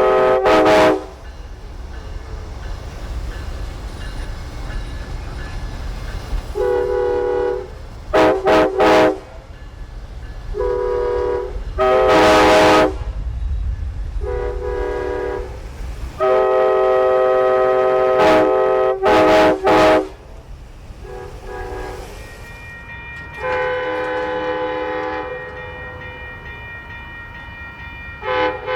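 Multi-chime locomotive air horns sounding in a back-and-forth series of blasts: a truck-mounted train horn and a train's horn. Some blasts are short and very loud, in quick pairs about a second long; others are longer and weaker, one held about two seconds. A low rumble runs under the first half.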